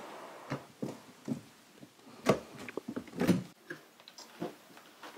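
An old hard-shell suitcase being handled and opened: a run of irregular clicks and knocks from its metal clasps and lid, the loudest about two and three seconds in.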